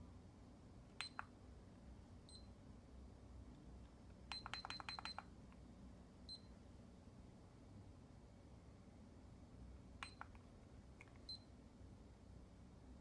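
Handheld blood glucose meter's buttons clicked, most presses with a short high beep, as the meter pages through its stored readings. Single presses come scattered through, with a quick run of about six just after four seconds in, over faint room tone.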